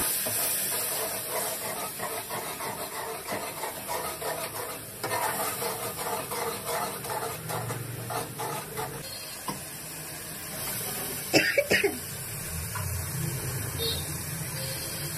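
A metal spoon scraping and stirring a thick spice paste frying in an aluminium pot, with a low sizzle. About two-thirds of the way through, two short coughs, the kind brought on by the pungent frying-chilli fumes.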